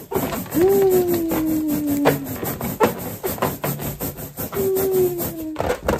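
A rubber balloon rubbed rapidly back and forth on a child's hair to build up static: a quick, rhythmic rasping of rubber on hair, with two drawn-out tones that slowly fall in pitch, one early and a shorter one near the end.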